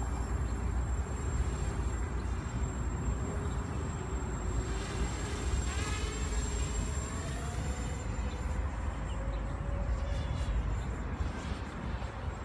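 Graupner Alpha 250 racing quadcopter's electric motors buzzing in flight, the pitch wandering up and down as the throttle changes, with a quick swoop in pitch about six seconds in. A low wind rumble on the microphone runs underneath.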